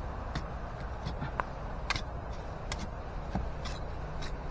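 Irregular soft clicks and crackles of hands pulling at a tree root and scraping dry soil out of a hole, over a steady low rumble.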